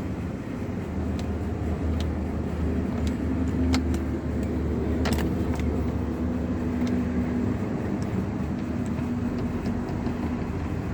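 1998 Honda Accord's engine idling with a steady low hum, with a few sharp clicks over it.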